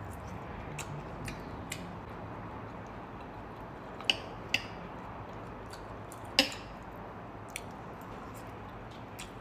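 Cutlery clicking and tapping on a plate while eating: about eight sharp, scattered clicks over a steady low room hum, the loudest about six and a half seconds in.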